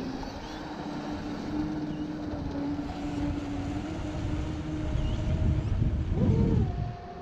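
Brushless electric motor of a Mystic 138 RC speed boat whining steadily as the boat runs flat out across the water, the pitch jumping higher near the end. Wind buffets the microphone with a low rumble, loudest about five to six and a half seconds in.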